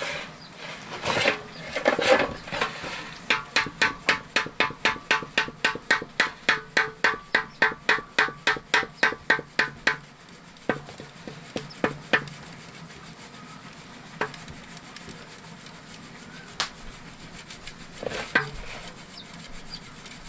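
Hand work in a village kitchen: a run of rhythmic rubbing or scraping strokes, about three a second, that stops about ten seconds in. A few scattered knocks follow.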